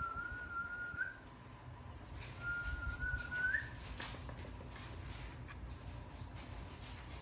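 A person whistling two high notes, each held for about a second and sliding upward at the end, the second starting about two and a half seconds in.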